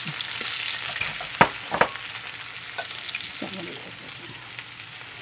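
Frozen peas and diced carrots sizzling in hot oil in a frying pan, a steady hiss that slowly eases as the oil settles. Two sharp clicks or pops come about a second and a half in, typical of wet frozen peas spitting in the oil.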